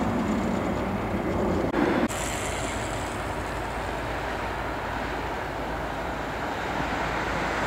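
Jet engine noise from a Boeing 777-200ER's Rolls-Royce Trent 800 turbofans as the airliner moves along the runway: a steady rushing roar. About two seconds in, the sound changes abruptly to a thinner, hissier roar.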